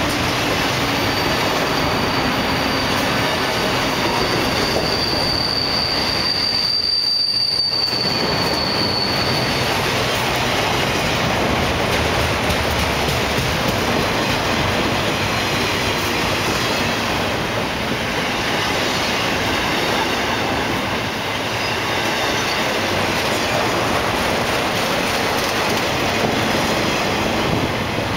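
Loaded autorack freight cars rolling past at close range: a steady rumble and rattle of steel wheels on rail. A high-pitched wheel squeal rises over it from about a second in and fades out around ten seconds in.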